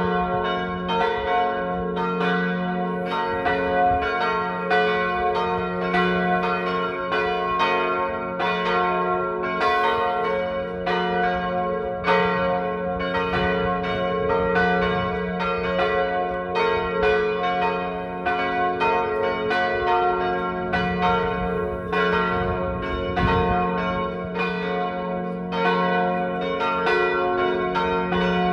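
Three swinging church bells, tuned G-flat, B-flat and D-flat, ringing together in a full peal: their clapper strikes overlap several times a second and the tones hang on between them.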